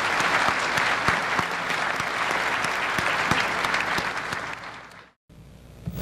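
Audience applauding, a dense patter of clapping that dies away about five seconds in, followed by a moment of silence and a faint low hum.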